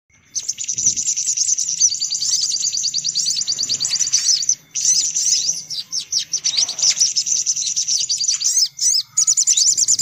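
Sunbirds calling in a lure recording: a dense, fast run of high chirps and trills, several calls overlapping, with a brief break about halfway and another near the end.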